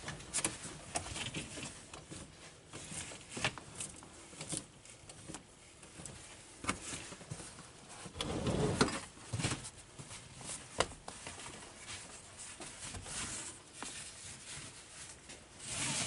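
Light clicks and rustling of a three-point retractable seat belt being handled: webbing sliding out of and back into the retractor, the buckle tongue and belt hardware clicking, with a longer, louder rustle about eight seconds in.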